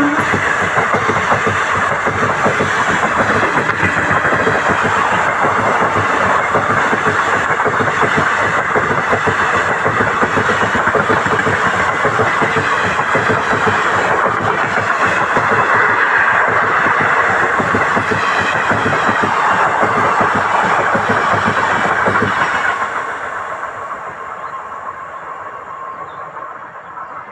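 Indian Railways express train passing close at speed: a loud, steady rush of wheels on rail with clattering over the joints, dropping off sharply about 22 seconds in and fading as the last coaches go by.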